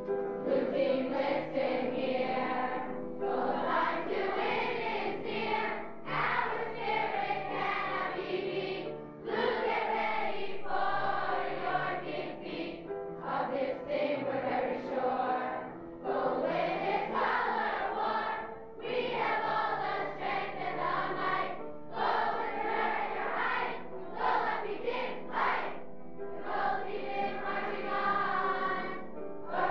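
A large group of campers singing a song together in chorus, in phrases of about three seconds with short breaks between them.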